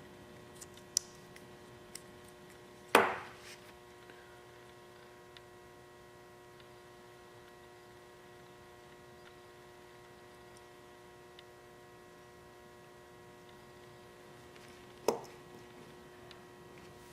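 Quarter-inch drive bits and the metal multi-tool being handled: a few light clicks, then a sharp clink with a short ring about three seconds in and another near the end, over a steady low electrical hum.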